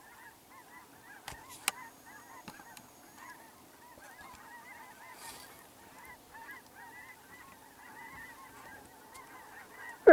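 A flock of geese honking, many overlapping calls going on steadily. Right at the end comes one much louder, brief sound.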